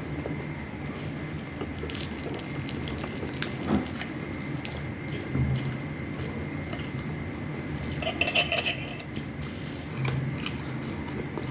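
Utensils clicking and clinking against a plate during a meal, with a short run of ringing clinks about eight seconds in.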